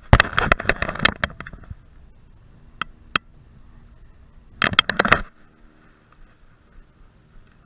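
Clattering knocks and scrapes of handling noise in two bursts. The first lasts about a second and a half at the start, then come two single sharp clicks, then a shorter burst of half a second about two-thirds of the way through.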